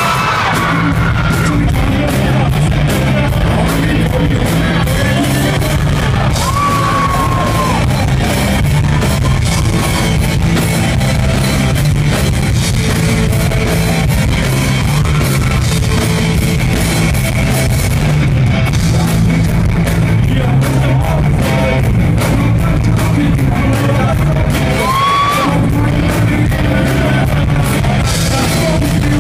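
Live rock band playing loud and continuously: electric guitars, bass and drum kit under sung and shouted vocals, heard through a stage PA.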